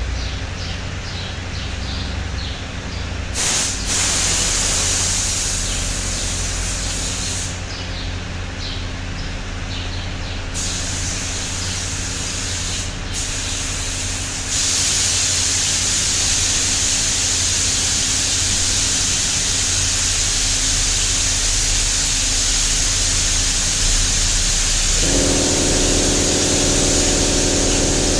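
Paint spray gun hissing as silver colour coat is sprayed, in short on-off passes at first and then continuously from about halfway through. A steady low hum runs underneath, and a motor starts running with a steady tone near the end.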